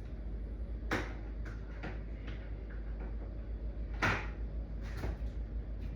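A few sharp knocks and light clicks from handling things, two of them louder, about a second in and about four seconds in, over a steady low hum.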